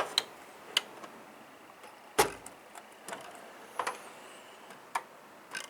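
Metal tool chest drawers being handled: scattered clicks and light metal knocks, with one solid thump about two seconds in, like a drawer shutting.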